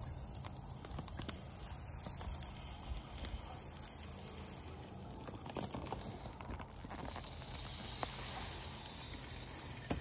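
Loose bird seed poured from a bag into a tube bird feeder: a steady hiss of streaming seed with scattered small ticks of seeds striking the feeder. It gets a little louder in the last couple of seconds, as pouring moves to a metal-mesh feeder.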